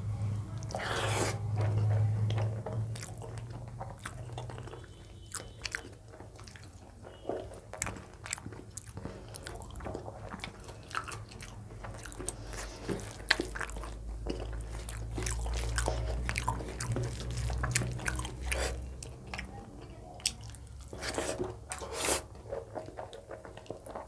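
A person chewing and biting a meal of rice, dal and fried vegetables close to the microphone, with many short wet clicks and crunches. A steady low hum runs underneath.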